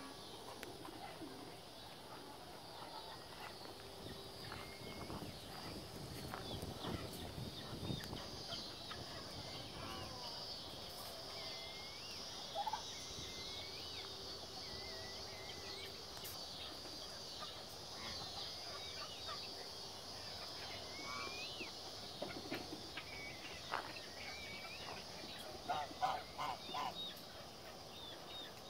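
Farmyard poultry calling on and off, with a quick string of loud calls near the end, over a steady high-pitched hum and scattered short chirps.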